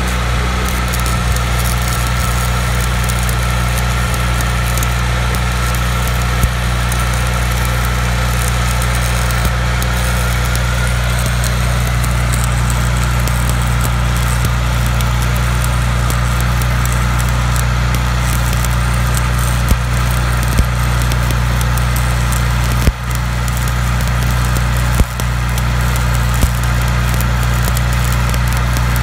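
Stick-welding arc crackling and hissing as an electrode is run on a steel wagon axle bracket, with a few sharp pops and two brief breaks in the arc near the end. Under it a steady low engine drone runs throughout.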